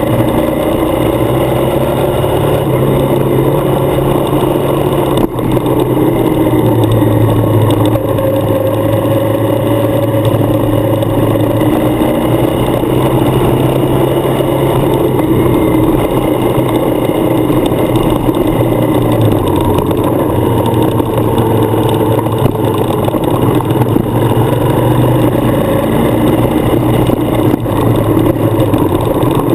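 Adventure motorcycle engine running steadily while riding a gravel road, under heavy wind and road noise. The engine note shifts up and down a few times as the throttle changes.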